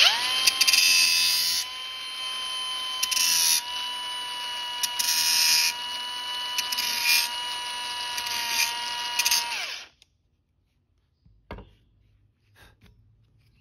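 Angle grinder running with a steady high whine, its abrasive disc grinding powder coating off the end face of a steel suspension arm tube, with several louder rasping passes as the disc meets the metal. It shuts off just under ten seconds in.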